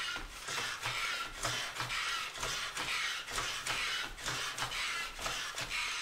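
A 3-tonne jack being pumped by hand, one stroke about every half second, lifting the rear of the vehicle by the frame.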